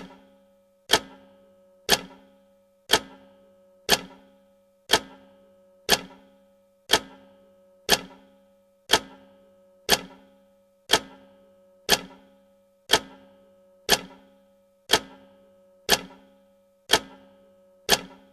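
Clock-style tick sound effect of a countdown timer, one sharp tick every second with a short ringing decay.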